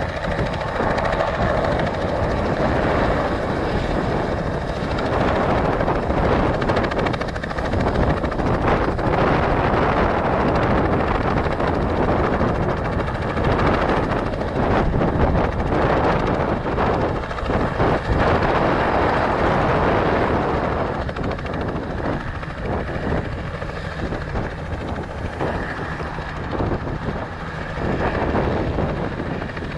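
Robinson light helicopter hovering and taxiing low over the ground, its rotor and piston engine running steadily. It grows somewhat quieter in the last third as it moves away.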